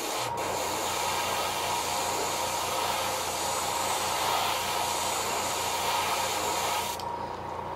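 Airbrush spraying paint onto a fishing lure: a steady hiss of air that starts just after the beginning and cuts off about seven seconds in.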